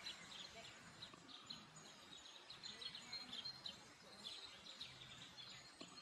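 Faint background ambience with small birds chirping now and then, short high chirps scattered throughout.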